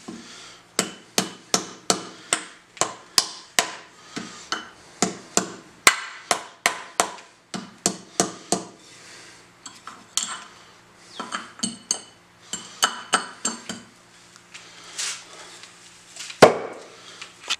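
Small hammer striking steel on an old axe head wedged in a wooden stump, sharp metal-on-metal blows about two to three a second, in two runs with a pause between, knocking at the head to loosen the old wedge and handle. One heavier thump near the end.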